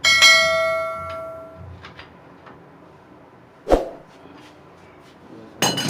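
A metal tool or fitting clanks and rings, the ring fading over about a second and a half; a dull knock follows near the middle, then a quick clatter of metal clinks near the end, as plumbing tools and fittings are handled.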